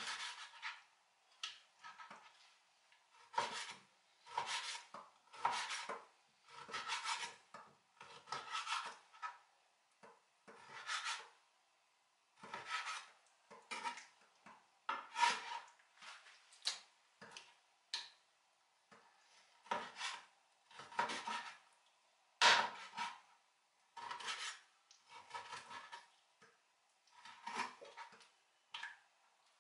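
Chinese cleaver slicing raw pork liver on a cutting board: repeated drawn strokes, about one a second, each a short rasp of the blade through the liver and across the board, with an occasional sharper tick.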